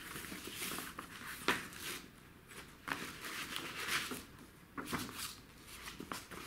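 Pages of a paper brochure being turned and handled: dry paper rustling in a run of short crinkles, with sharper snaps about one and a half, three and five seconds in.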